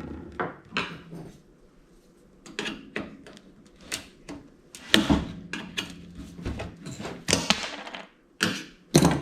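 Irregular knocks, clicks and scrapes of a tool prying at a toaster oven's parts, metal being worked loose.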